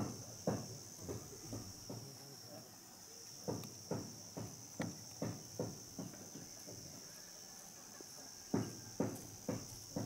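Insects droning steadily at a high pitch, with footsteps on the ground, about two a second in short runs with pauses between.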